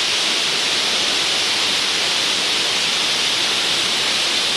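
Steady rushing roar of a waterfall, an even hiss that stays level throughout.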